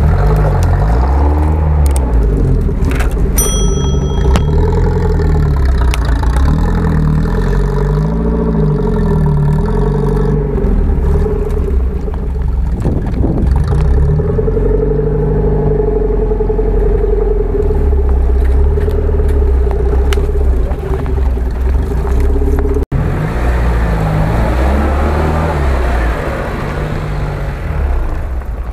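UAZ-469 off-road vehicle's engine revving up and down repeatedly as the truck crawls over rough snowy ground, with a steady whine held for several seconds in the middle. A short bell-like ding sounds about three seconds in.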